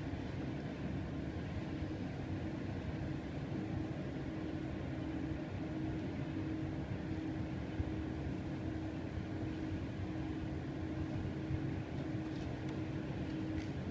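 Steady mechanical hum with a constant low tone, with a few faint clicks near the end.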